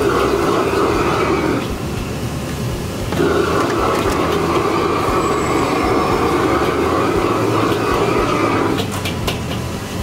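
Restaurant gas wok burner roaring under a wok of frying noodles. It swells and eases: loud for the first second and a half, lower for about a second and a half, then loud again until near the end. A few sharp clinks of the ladle against the wok come near the end.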